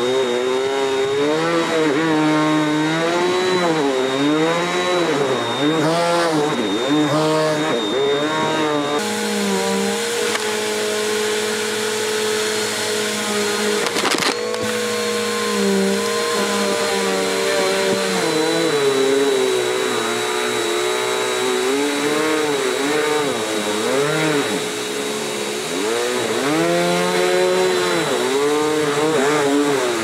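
Bissell PowerForce Helix upright vacuum cleaner running while it sucks paper towels off a roll into its nozzle. The motor pitch swings up and down over and over, holds steadier for several seconds in the middle and then wavers again, with a steady high whine throughout. There is one sharp click about halfway through.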